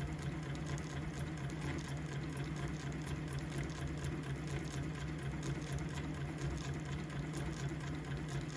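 Singer 111W155 industrial sewing machine running steadily to wind a bobbin: a constant motor hum with a fast, even whirring tick from the spinning mechanism.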